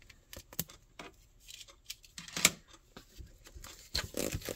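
Plastic shrink wrap being cut and peeled off a cardboard product box: scattered short crackles and crinkles, the loudest about two and a half seconds in.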